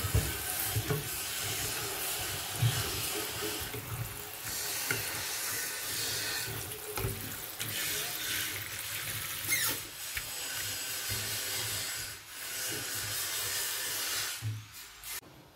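Tap water running into a metal pot of sliced purple yam in a stainless steel sink, while a hand swishes the pieces to rinse them. The running water cuts off near the end.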